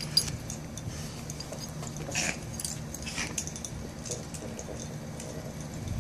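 A Chihuahua and a mastiff play-wrestling: short scuffling sounds and the jingle of collar hardware, with sharp noises just after the start and about two and three seconds in, over a steady low hum.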